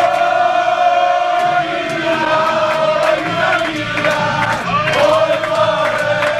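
A roomful of football fans singing a chant together in unison, holding long notes, with hands clapping along, as they celebrate a goal.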